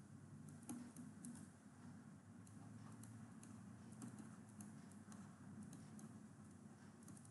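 Very faint, irregular small clicks and taps of a stylus writing on a pen tablet, over a low steady hum.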